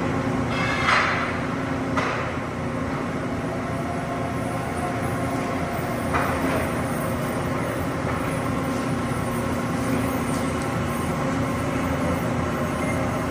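Steady mechanical hum of running machinery, with short hissing bursts about a second, two seconds and six seconds in.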